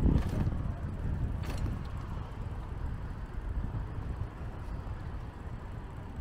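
Low rumble of wind buffeting the microphone outdoors, slowly easing off, with two short clicks: one just after the start and one about a second and a half in.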